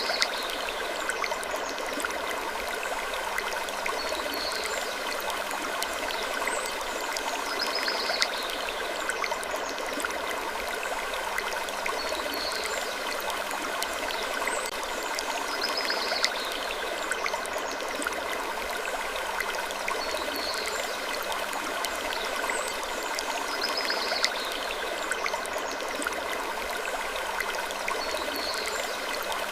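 Looped creaking-wood sleep ambience: a steady rushing hiss with a bed of steady tones, and a short high creak that recurs about every four seconds.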